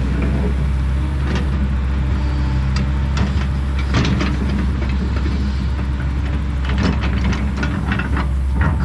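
Kobelco SK210 excavator's diesel engine running steadily under work, with irregular clanks and knocks every second or two.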